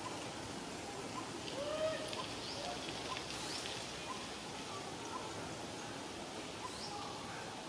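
Forest ambience: a steady background hiss with scattered short animal chirps and calls, the loudest a single rising call about two seconds in.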